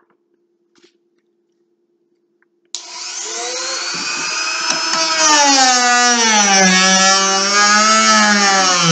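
Near silence, then about three seconds in a small handheld power tool starts suddenly and runs loudly. Its pitch sags and recovers as it is pressed onto the metal to strip rust from an old hammer.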